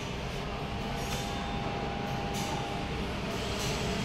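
Steady mechanical hum and whir of a running dip soldering machine, with a faint steady tone and a few soft hissing swells.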